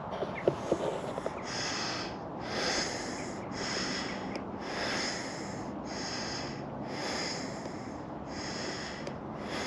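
Heavy, rhythmic breathing close to the microphone, about one breath sound a second, with a few small clicks near the start.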